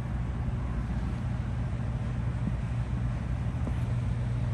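A steady low mechanical hum with an even rushing noise, unchanging throughout.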